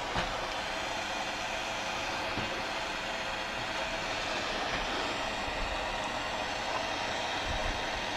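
A steady rushing hiss that holds an even level throughout, with a couple of faint knocks.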